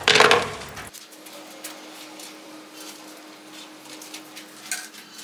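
A short voice sound in the first second, then marker strokes on a whiteboard: faint, irregular scratches and taps as hatching is drawn, over a steady low hum.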